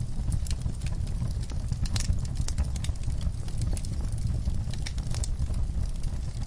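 Wood fire in a fireplace crackling, with irregular sharp pops and snaps over a low steady rumble.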